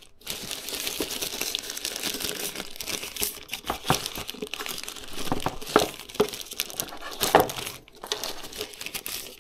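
Plastic bag and tissue-paper packaging crinkling and rustling as it is handled, with several sharper crackles.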